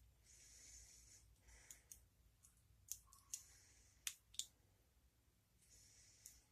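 Lock pick and tension wrench working inside a brass padlock's keyway: quiet high scraping of the pick on the pins, with about half a dozen small sharp clicks at irregular intervals.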